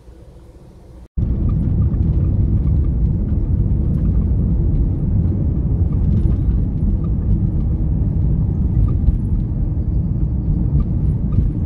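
A vehicle on the move: a loud, steady low rumble that starts suddenly about a second in.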